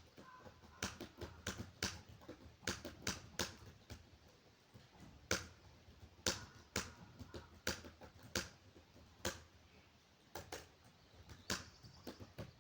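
Laptop keyboard being typed on at a steady pace: irregular key clicks, a few a second, with short pauses between bursts.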